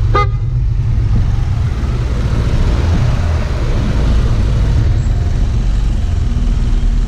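Riding noise from a Yamaha Aerox 155 scooter under way: steady wind buffeting and road rumble on the microphone, with the single-cylinder engine running underneath. A short, high tone sounds just after the start.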